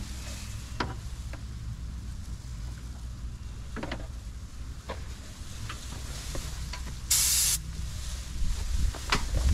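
Paint spray gun laying clear coat: one hiss about half a second long, roughly seven seconds in, over a steady low hum and a few light knocks.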